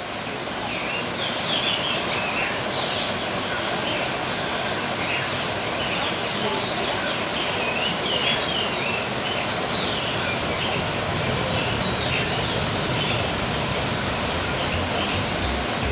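Outdoor nature ambience: a steady rushing hiss with many small birds chirping and calling over it throughout.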